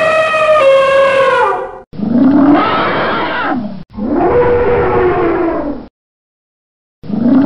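Elephant calls: first a brassy trumpet holding one pitch, which drops and fades at its end. Then come two rough, roaring calls of about two seconds each, rising and then falling in pitch, with another starting near the end. Each call starts and stops abruptly.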